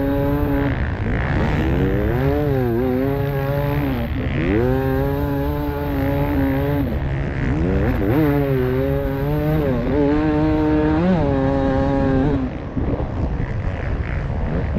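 Beta 300 RR two-stroke enduro motorcycle engine racing at high revs on sand. The pitch climbs, holds and dips again and again as the rider works the throttle and gears, and the note drops away near the end. A heavy wind rumble lies underneath it.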